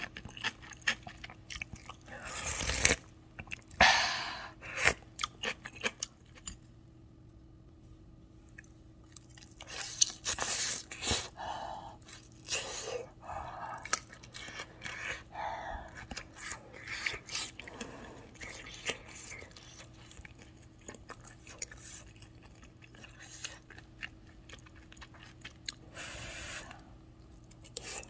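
Close-miked eating sounds: sips of udon broth from a wooden spoon and bites into pan-fried spicy mandu, with chewing and soft crunching in irregular bursts.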